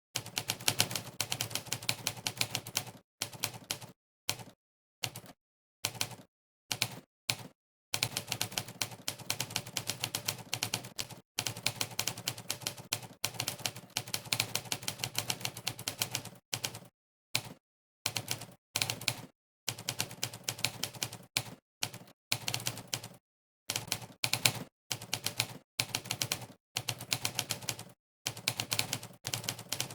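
Typewriter keystroke sound effect from the Monkeytype typing site, one key strike per keypress, clicking rapidly in runs of fast typing broken by short silent pauses.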